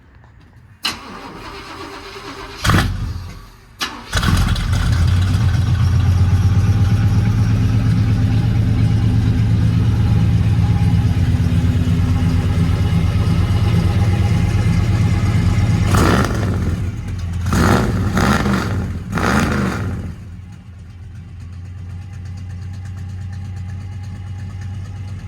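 Cold start of a 1991 Chevy Suburban's 7.4-litre big-block V8 through a 3-inch true dual exhaust with headers and SpinTech mufflers: it cranks and catches about four seconds in, then settles into a loud, deep, steady fast idle. Near the end, three short revs are followed by a lower, quieter idle.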